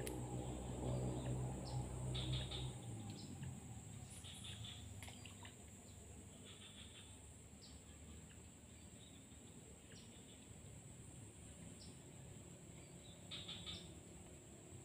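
Short bird chirps every second or two over a steady, high-pitched insect buzz. A low hum underneath stops about three seconds in.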